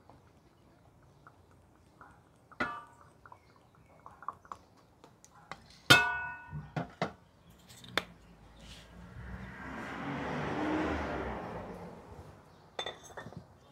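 Scattered clinks and knocks of kitchen pots or dishes, the loudest a ringing clink about six seconds in. Near the end comes a rushing noise that swells and fades over about three seconds.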